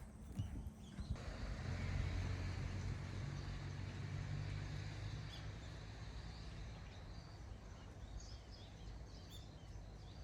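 Low engine rumble that swells over the first couple of seconds and then slowly fades, with faint bird chirps near the end.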